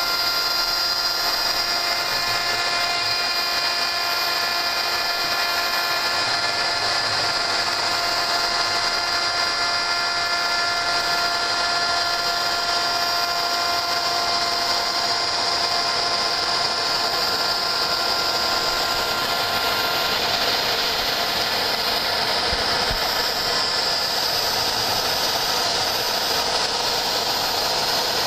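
Homemade CNC router running a milling job: the spindle motor and cutter give a steady, high whine with several held tones over a rushing cutting noise, and one of the lower tones drops out about two-thirds of the way through.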